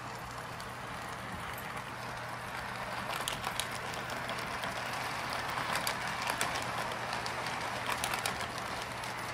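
Lionel O-gauge toy train running on its track, a steady rolling rumble that grows louder as it comes closer, with bursts of clicking as the wheels pass over rail joints and a track crossing.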